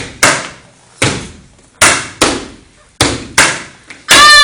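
Step team stomping and clapping in unison: sharp, echoing beats, mostly in pairs about half a second apart. Near the end the steppers give a loud shout.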